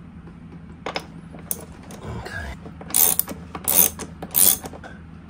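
Ratchet wrench clicking as it tightens a nut on a battery terminal to fasten a cable lug: a couple of faint clicks, then three short, louder runs of ratcheting about three, four and four-and-a-half seconds in.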